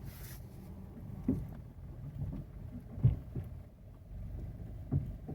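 Car rolling slowly with a low rumble and a clunk about every two seconds, three in all. The clunks come from a loose wheel held on by only two lug nuts.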